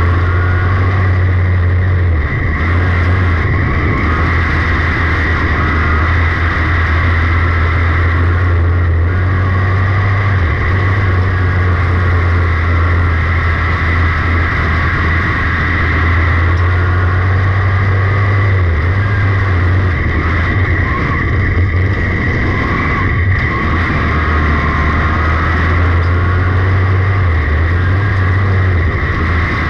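A 602 sportsman dirt-track race car's small-block V8 crate engine running hard at racing speed, heard from on board the car. It is a loud, steady drone that dips briefly about every eight seconds.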